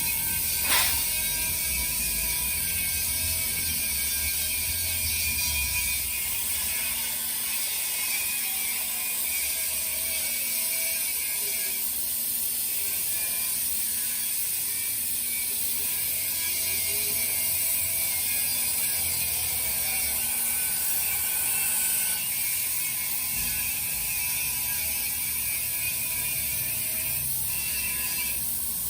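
CNC plasma cutting table at work on thin sheet steel: a steady high hiss, with faint machine tones sliding up and down as the cutting head moves. There is one sharp click about a second in.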